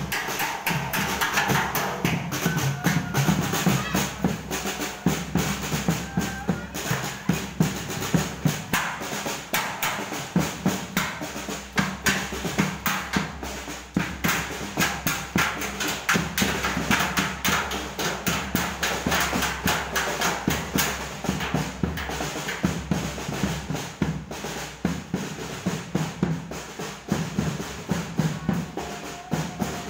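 Drums and percussion beaten in a fast, continuous rhythm by a group walking the streets: the traditional call that wakes residents for sahur, the pre-dawn meal in Ramadan.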